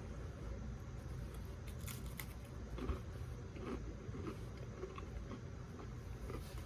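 A person biting and chewing saltine crackers with a mouthful of stroganoff: a few sharp crackles about two seconds in, then irregular soft crunches.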